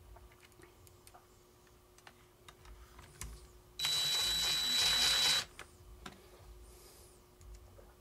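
DeWalt cordless driver running in one steady burst of about a second and a half with a high whine, driving a trim screw into the back of a steering wheel. Light clicks of screws and parts being handled come before and after.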